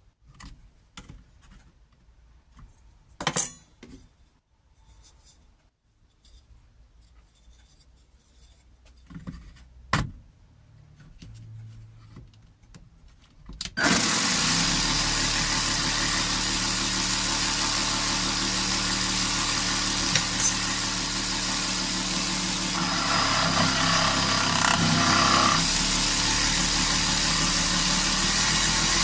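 A few knocks and clicks of handling on the bench. About 14 seconds in, a Parkside 12V cordless reciprocating saw, mounted blade-up under a steel table, starts abruptly and runs steadily, its blade sawing into a piece of wood fed against it.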